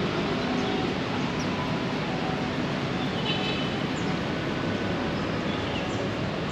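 Steady outdoor background noise with a faint murmur of voices and a few short bird chirps, including a brief trill about three seconds in.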